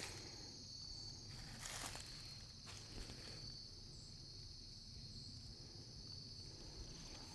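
Faint, steady, high-pitched chorus of insects, with a few soft footsteps on dry leaf litter about two and three seconds in.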